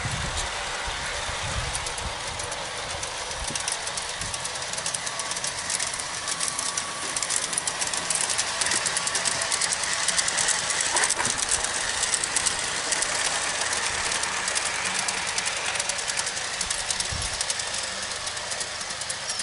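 G scale model diesel locomotive and freight cars running along garden railway track, the wheels making a rapid, continuous clicking over the rail joints. It grows louder midway as the train passes close, then fades a little.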